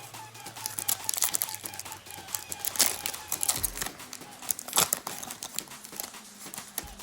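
Foil wrapper of a trading-card pack crinkling and tearing as it is ripped open by hand, with the sharpest crackles about three and five seconds in.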